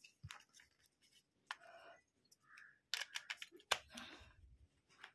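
Faint clicks and plastic taps of a removable lithium-ion phone battery being handled and fitted into the open back of a Jio feature phone, with a quick run of clicks about three seconds in and a sharper snap just after.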